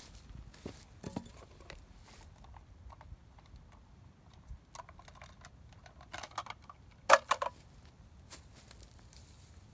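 Footsteps and rustling in dry leaves and grass, with scattered short clicks and rattles of small handheld items; the loudest is a quick cluster of sharp clicks about seven seconds in.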